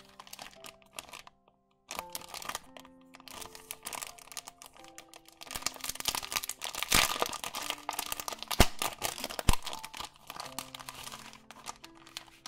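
Clear cellophane sticker packet crinkling as its sealed flap is peeled open and the plastic is pulled apart. The crinkling is loudest in the middle, with two sharp snaps about two-thirds of the way in. Background music plays underneath.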